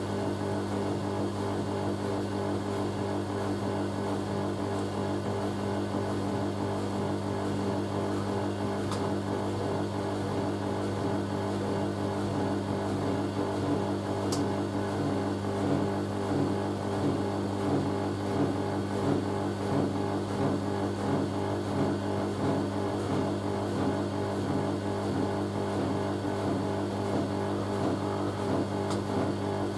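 Hoover A3060 Electronic 1100 washing machine spinning on its final spin, its motor running with a steady hum. A faint rhythmic pulsing from the turning drum comes in about halfway through.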